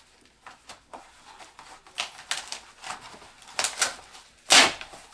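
A large cardboard shipping box being opened by hand: irregular rustles, scrapes and knocks of cardboard and packaging, with the loudest bump a little before the end.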